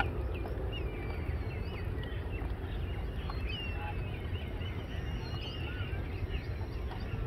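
Many birds chirping and whistling, with short rising and falling calls overlapping throughout, over a steady low rumble.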